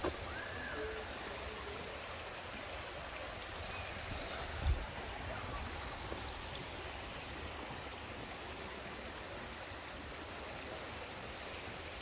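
Steady rush of flowing water from a forest creek, with a few brief bird chirps and one low thump about halfway through.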